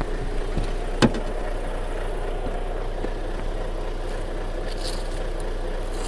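Lorry's diesel engine running steadily at idle, with one sharp knock about a second in and a brief hiss about five seconds in.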